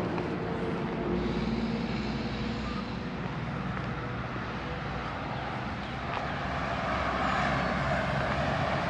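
Steady motor vehicle engine noise, growing slightly louder over the last few seconds.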